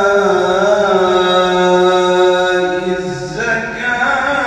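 A man chanting Quran recitation in the melodic tajweed style. He holds one long note with slight waverings for about three seconds, then starts a new phrase.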